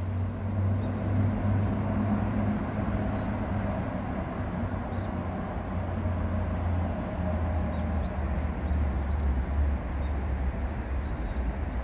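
Steady traffic noise from vehicles on an elevated highway overhead: a continuous low rumble and hum, with faint bird chirps high above it.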